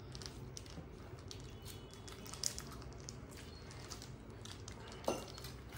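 Faint eating sounds: fingers squishing and mixing rice and curry on steel plates, with chewing and small scattered clicks. Two clicks stand out a little, one about midway and one near the end.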